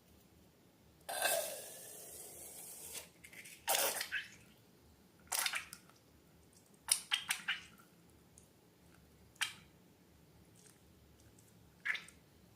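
Slime being squeezed and handled: a longer hissing squelch about a second in, then a string of short wet squishes and pops, a quick cluster of them near the middle.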